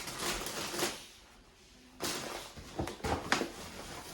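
Groceries being handled: a few bursts of rustling and crinkling packaging with light knocks as items are set down and picked up.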